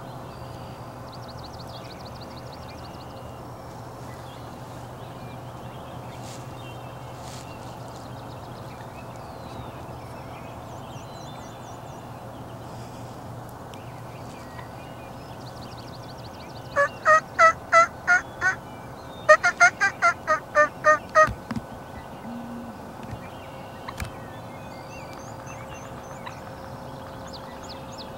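Wild turkey gobbler gobbling twice, each gobble a rapid rattling run of notes, the first about seventeen seconds in and the second just after.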